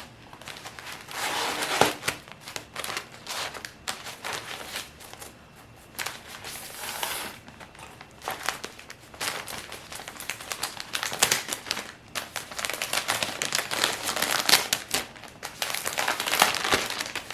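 Wrapping on a large package crinkling and rustling as it is pulled open by hand, in irregular spells with short pauses between them.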